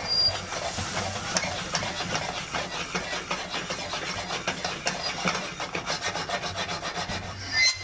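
A pan of curry shaken and slid back and forth on the stovetop: rapid, rhythmic scraping and rattling of metal on metal, with a sharper clank near the end.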